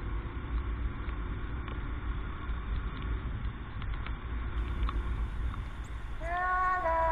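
Motorcycle riding on a wet road: a steady low rumble of engine, tyres and wind picked up by a handlebar-mounted camera. Music comes back in near the end.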